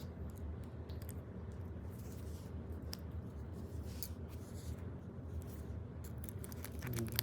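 Faint, scattered metallic clicks and rattles of a Master Lock No. 1 laminated steel padlock as its locked shackle is pulled and tugged to test that it holds, over a low steady hum.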